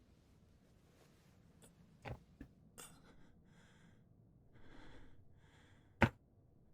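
Faint breathing, broken by a few sharp clicks; the loudest click comes about six seconds in.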